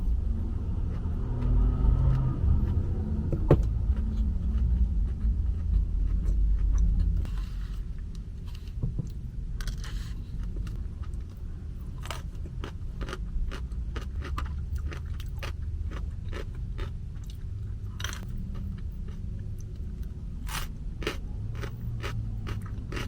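Close-miked chewing and crunching of food, heavy and low for the first several seconds, then a long run of short, crisp crunches and mouth clicks.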